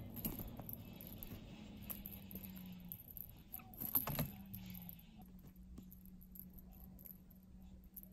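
Small bell on a feather wand cat toy jingling in short bursts as a cat bats at it, with light taps and rustles, loudest about four seconds in. A low steady hum runs underneath.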